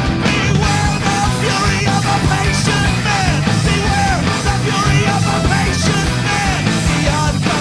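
Live rock band playing loudly: electric guitar, bass guitar and drum kit, with a male lead vocal.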